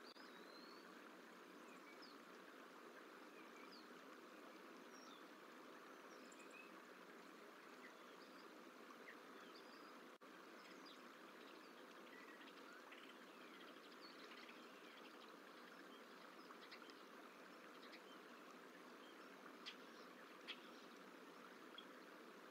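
Faint outdoor ambience: a steady low hiss with scattered faint, high, short chirps of small birds throughout.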